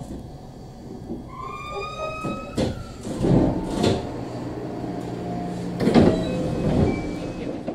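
Electric train standing at a station: a brief rising squeal, then several bursts of air hiss and knocks as its sliding doors work, over the train's steady hum.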